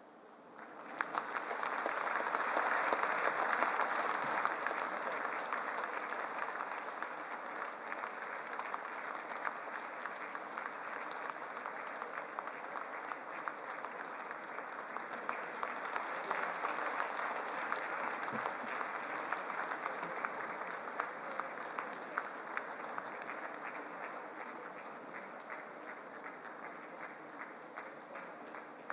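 Audience applause: many hands clapping, breaking out about a second in and loudest over the first few seconds, then going on steadily and easing off a little near the end.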